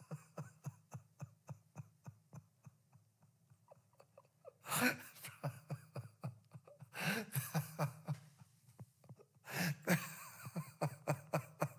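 A man's held-back laughter: a run of quick, short breathy chuckles, broken three times by louder bursts of laughing.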